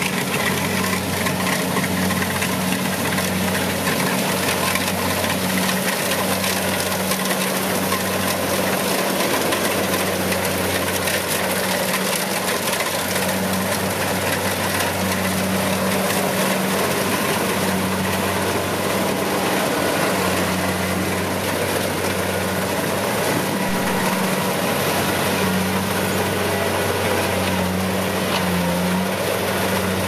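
Kubota rice combine harvester running while it cuts and threshes rice: the diesel engine's steady hum under a continuous wash of machinery noise.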